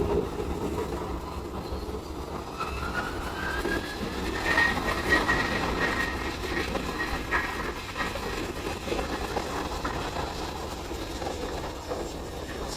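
Jet airliner engines running: a low rumble with a whine that rises in pitch a few seconds in, then holds steady before fading back into the rumble.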